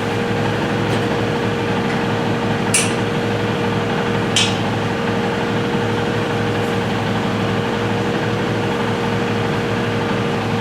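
Steady machine hum with fixed tones throughout, broken by two short metallic clinks about three and four and a half seconds in, as metal fittings are handled.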